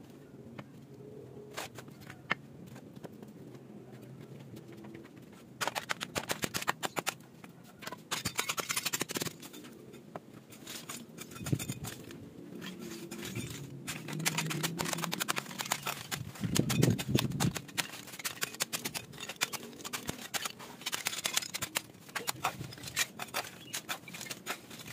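Broken brick fragments clinking and scraping as they are picked up by hand and stacked on dry dirt, in irregular clusters of sharp clicks. The clatter is sparse at first and grows busier after a few seconds, with a duller thump about two-thirds of the way in as a piece is set down.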